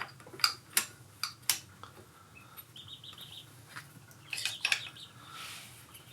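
Steel clutch plates and friction discs from a Honda VT700C clutch clinking against each other as they are handled and laid down: four sharp clinks in the first second and a half, then another cluster about four and a half seconds in.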